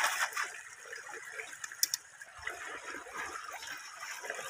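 Shallow river water splashing and trickling around a bamboo paddle wheel that the current turns, with the splash of wading steps. A single sharp click comes a little under two seconds in.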